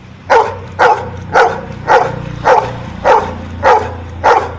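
A dog barking on command, eight sharp, evenly paced barks about two a second, counting out the number ten it has been asked for.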